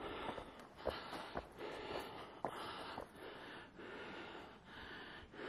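A person breathing hard while hiking uphill, a steady run of hissing breaths about every two-thirds of a second, with a few faint clicks.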